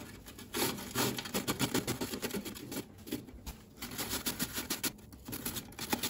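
Apple and quince being grated by hand on the coarse side of a stainless steel box grater: a quick run of repeated scraping strokes with a few short pauses.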